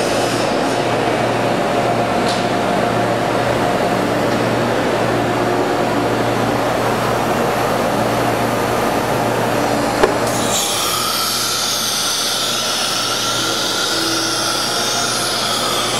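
Steady machine hum from a CNC router under power. About ten seconds in there is a click, and then the router's high-speed spindle whines steadily at a high pitch.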